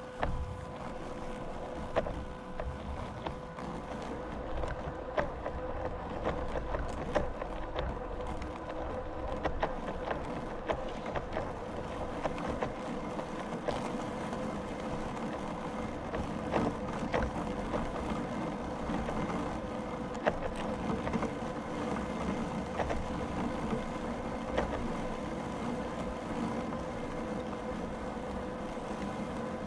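A small motor running steadily with a constant hum, over rustling noise, with scattered light clicks and knocks.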